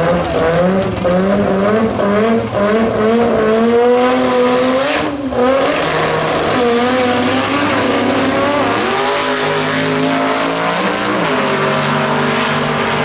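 Drag-racing car engines revving hard, the pitch wavering rapidly up and down for the first five seconds. Then they hold steadier notes, with a rise and a step like a gear change near the end.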